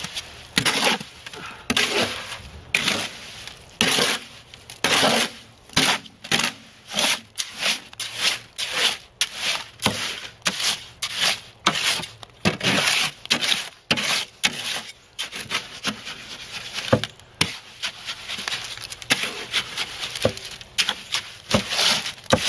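A hoe scraping and churning wet concrete mix in a wheelbarrow, in repeated strokes about one to two a second. The drier mix is being worked into the wetter part after water has been added.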